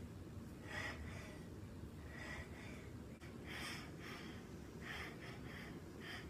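A woman breathing hard during a dumbbell workout: short, sharp, breathy exhales, about one every second or so and sometimes two close together, over a low steady hum.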